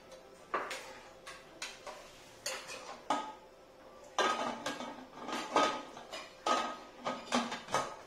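Metal pressure cooker being closed: the lid clanks and scrapes against the pot as it is set on and locked. It is a string of sharp metal knocks, a few scattered at first and then a quick run of ringing clanks in the second half.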